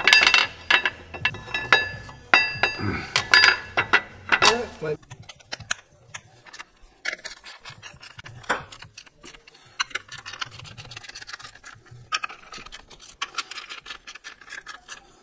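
Metal clicking and clinking as clutch pressure-plate bolts are threaded in and gradually tightened against the flywheel. Loudest and busiest in the first five seconds, then lighter ticking.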